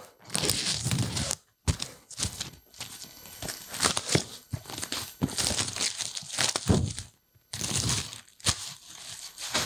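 Clear plastic shrink wrap being torn open and peeled off a cardboard product box, crinkling and crackling in uneven spurts with a couple of short pauses.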